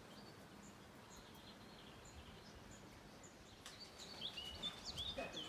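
Birds chirping and singing faintly over quiet outdoor background noise, with louder, quicker calls in the last second or two.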